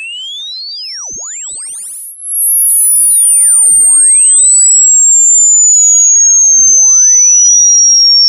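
Loud electronic sine-tone sweep: a very high, piercing pure tone gliding slowly and steadily downward, with fainter synthetic tones sweeping up and down across it.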